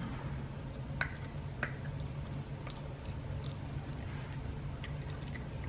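Cavachon puppy eating dry kibble out of a hand: a few faint, irregular crunches and mouth clicks over a low steady hum.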